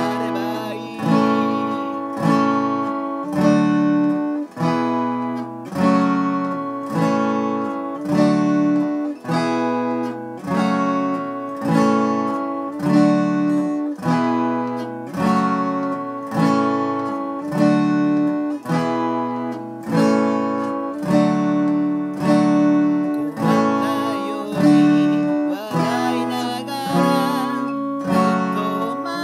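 Gibson J-45 acoustic guitar with a capo, strumming open chords (G, C, D, Em, B7) in a steady rhythm, about one strong strum a second.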